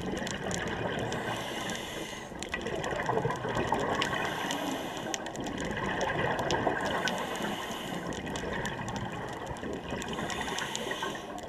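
Underwater sound of scuba divers breathing through their regulators: exhaled bubbles gurgling and rushing in swells every few seconds, with faint scattered clicks.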